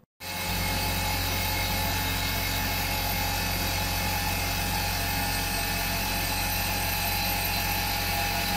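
Tormach 770 CNC mill cutting dry, its spindle driving a Superfly fly cutter across the face of a metal plate: a steady machining whir with a strong low hum. It starts suddenly just after the beginning.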